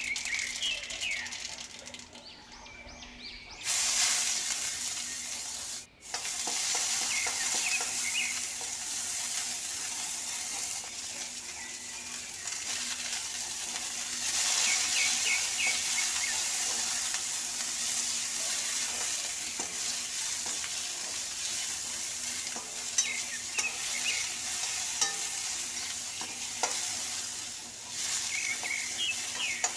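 Chopped onions and a whole tomato sizzling in hot oil in a black kadhai while a steel spatula stirs them. The sizzle starts suddenly about four seconds in and then holds steady, with a few sharp clicks of the spatula against the pan near the end.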